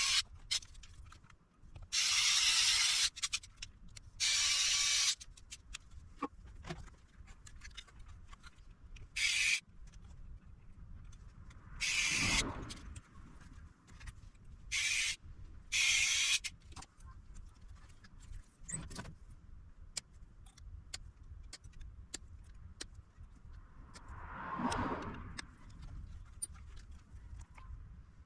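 A pressurised can hissing in about seven short bursts that start and stop sharply, with small clicks and handling noises between them.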